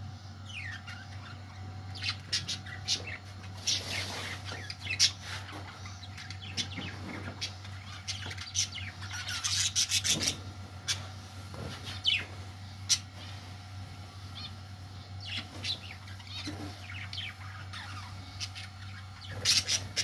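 Budgerigars chirping: many short, scattered high calls and quick warbles throughout, over a steady low hum.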